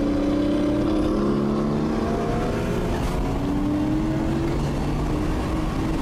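Nissan Skyline's engine heard from inside the cabin, pulling under acceleration: its note climbs slowly, drops back once partway through as it shifts up, then climbs again.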